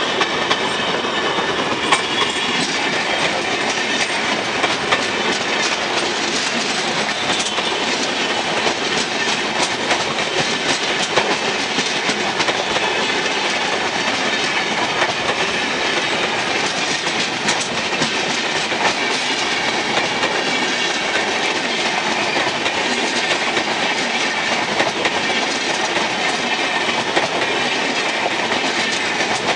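Air-conditioned passenger coaches of an express train passing close by at speed, the wheels clattering over rail joints in a steady stream of clicks under a loud rush of noise.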